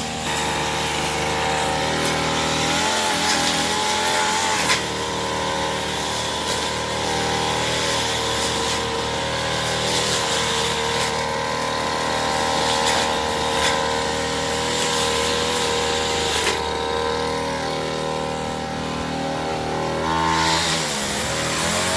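Engine of a motorised grass cutter running steadily at high revs, its pitch dipping briefly about three seconds in and again near the end, over a constant hiss.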